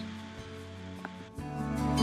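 Soft instrumental background music with held notes, swelling louder about a second and a half in.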